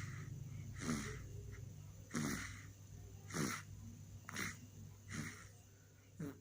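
A sleeping baby snoring: six noisy breaths, about one a second, the later ones fainter.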